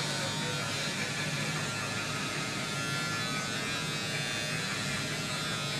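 Small electric ear-and-nose hair trimmer running with a steady buzz.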